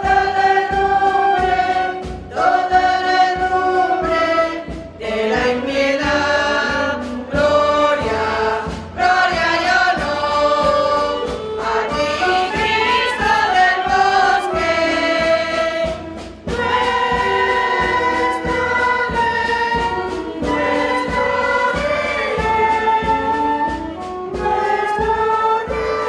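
A choir singing a hymn to instrumental accompaniment, in long held notes that move in phrases.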